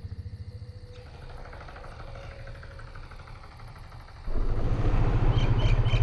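A vehicle engine's low rumble fades out, leaving faint insect chirping over a quiet background. About four seconds in, a loud low engine rumble starts up abruptly.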